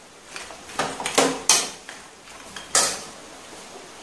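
Steel spatula scraping through chicken pieces in a metal pan as the dish is stirred: about four short scraping strokes, the last and loudest about three seconds in.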